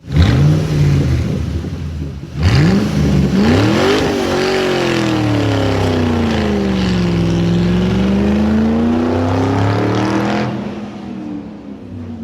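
Car engine sound effect, running and revving. The pitch rises about two and a half seconds in, then sinks slowly and climbs again. The sound cuts off about ten and a half seconds in and fades.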